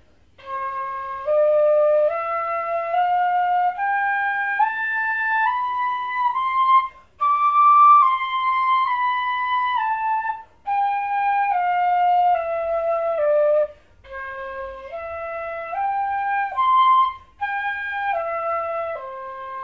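Pífano (cane fife in C) playing a C major scale up to the high D and back down, phrased in groups of four notes with short breaks for breath, then a C–E–G–C arpeggio up and back down to C.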